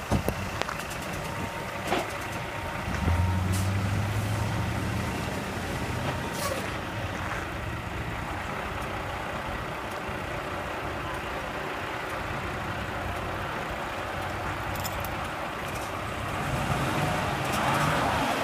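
Truck engines running under load as a Dodge Ram pickup tows a loaded semi across ice. An engine note swells for about two seconds starting about three seconds in. Near the end a rising rush of noise builds.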